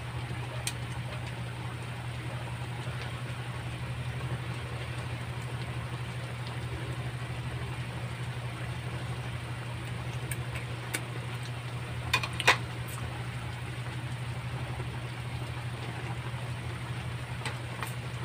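Steady low hum and hiss of a lit gas stove burner under a wok of simmering curry, with a few sharp clicks, the loudest about twelve seconds in.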